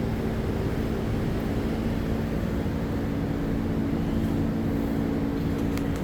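Steady mechanical drone with a low rumble and a constant hum.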